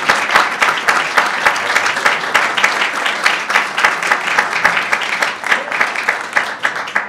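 Audience applauding: many people clapping steadily at the end of a talk.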